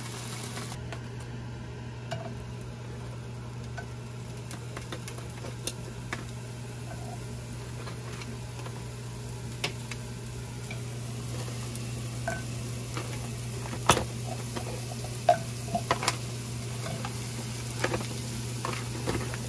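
Sliced beef sizzling as it fries in a pan, with a few sharp clicks and taps scattered through, the loudest about two-thirds of the way in, over a steady low hum.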